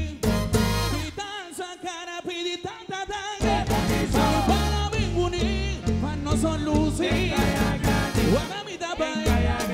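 Live tumba band music with a male lead singer, sung vocals over congas, drums and bass. About a second in, the bass and drums drop out for a couple of seconds, leaving mostly voice, then the full band comes back in.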